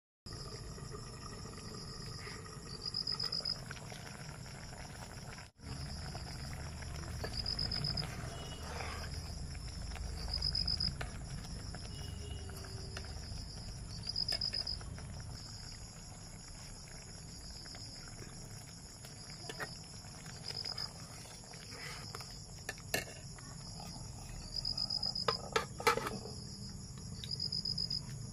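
Insects chirping: a steady high trill with short louder chirps every few seconds over a low background rumble. A few sharp clicks come near the end.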